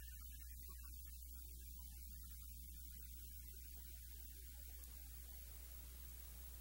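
Steady low mains hum with a faint even hiss.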